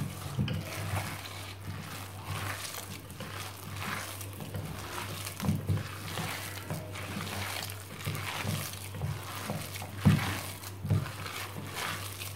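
Coarse lentil vadai batter being mixed by hand with chopped onion: a run of irregular wet strokes, the loudest about ten seconds in, over a steady low hum.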